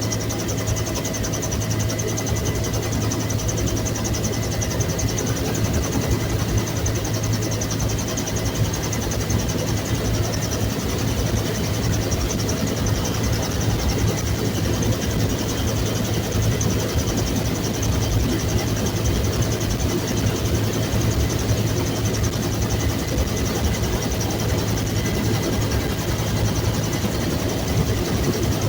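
Bell UH-1 Huey helicopter running steadily, its turbine and rotor making a loud, unbroken drone with a strong low hum.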